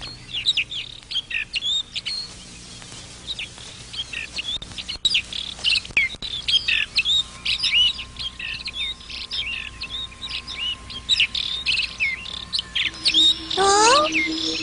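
Small birds chirping: many quick, short chirps. Near the end a short rising voice sounds and steady music comes in.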